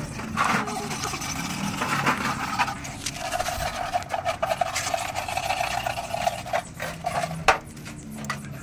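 Workshop tool work: a rapid buzzing scrape on the job, with a few sharp knocks, the loudest near the end.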